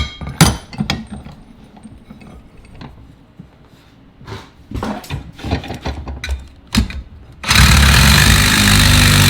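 Clicks and clanks of metal parts and tools being handled, then about seven and a half seconds in a power tool starts abruptly and runs loud and steady, cutting a steel exhaust pipe.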